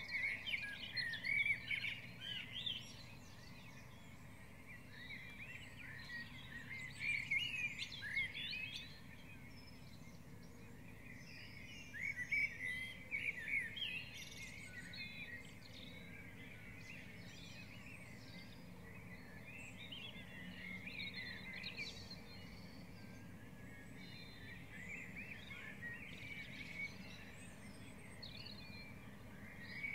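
Dawn chorus: several songbirds singing together in quick chirping phrases, loudest in swells near the start, about a quarter of the way in and near the middle, over a steady low background rumble.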